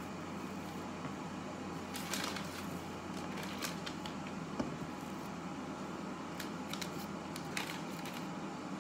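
Parchment baking paper rustling and crinkling in short scattered crackles as it is handled and folded up around a shaped loaf of bread dough, over a steady low hum.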